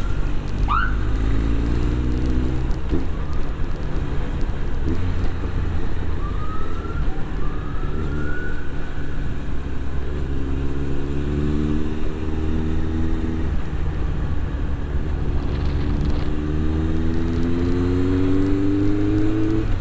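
Honda CB1100F's air-cooled inline-four engine heard from the rider's seat while riding: revs falling early on, then holding and climbing again in long rising sweeps as the bike accelerates, the strongest rise near the end.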